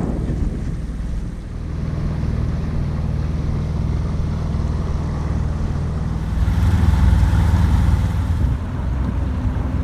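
Sailboat's engine running steadily under way, a low even hum, with wind buffeting the microphone, strongest from about six and a half to eight and a half seconds in.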